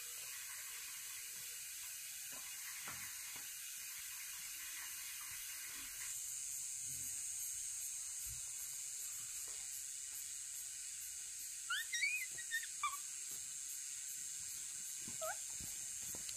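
A small animal gives a quick run of four high, squeaky calls, each sliding up and then down in pitch, about twelve seconds in, and one more shortly after. A steady high hiss runs underneath.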